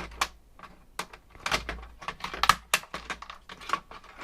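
Irregular clicks and light knocks of small plastic and metal parts being handled and pulled apart while a docking station is dismantled by hand, about a dozen sharp ticks with the loudest a little after halfway.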